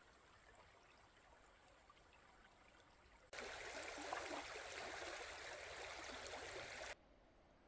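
Running water of a forest stream: a steady rushing sound that starts abruptly a little after three seconds in and cuts off abruptly about a second before the end. Before and after it there is only a faint hiss.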